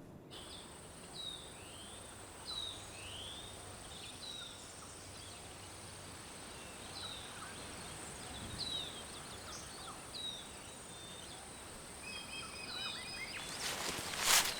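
Outdoor nature ambience: birds chirping in short, scattered calls over a steady background hiss, with a high steady insect-like whine. Near the end comes a sudden loud burst of noise.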